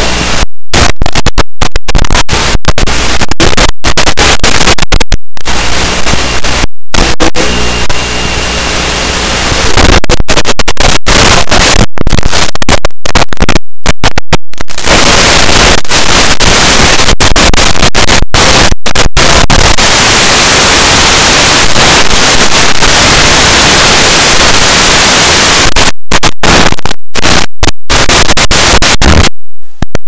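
Loud, even static hiss from an analog FPV video link's audio, cut by many brief drops to silence. A faint low steady hum lies under the hiss for roughly the first ten seconds.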